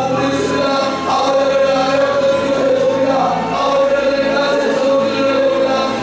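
Slow worship music with a group of voices singing together in long held notes that change pitch every second or two.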